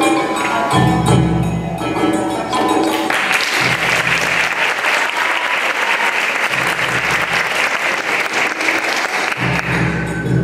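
Rakugo entrance music (debayashi) playing, with audience applause starting about three seconds in and fading near the end.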